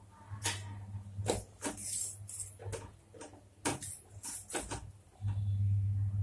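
Long steel spoon scraping and knocking against a stainless steel pot while stirring boiling noodles, about ten irregular strokes. A steady low hum runs underneath and grows much louder near the end.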